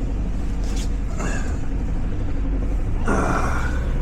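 Steady low rumble of a van's engine and road noise inside the cab while driving, with two short louder sounds, about a second in and again near the end.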